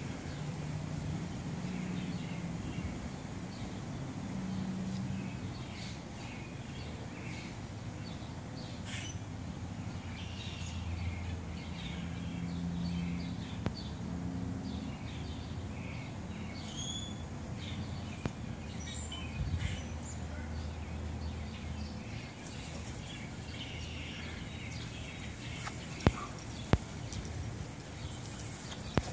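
Outdoor ambience: scattered bird chirps over a low, steady hum, with two sharp clicks near the end.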